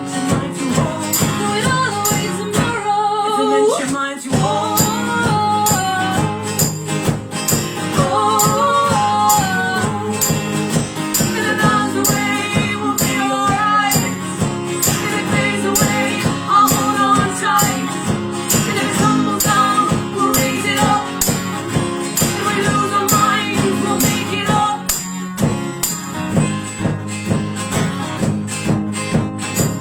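Live acoustic song: guitar with a steady, fast jingling percussion beat, and sung melody in places.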